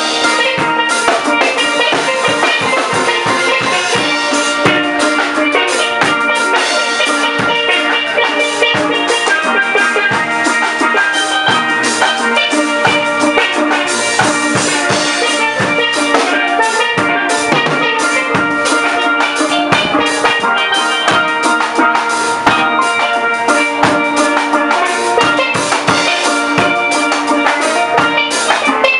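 Steel drum (steelpan) music with a drum kit backing, playing steadily.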